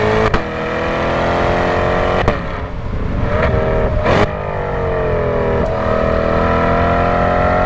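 C8 Corvette Stingray's naturally aspirated 6.2-litre V8, exhaust set loud, pulling through the gears of its 8-speed dual-clutch. The engine note rises and is broken about four times by a short crack as it upshifts and the pitch drops back.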